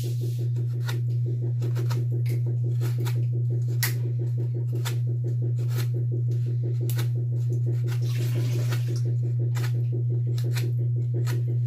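Kitchen knife shaving and scraping the end of a wooden broom handle, short sharp strokes about twice a second with a longer scrape near the end, over a loud steady low hum.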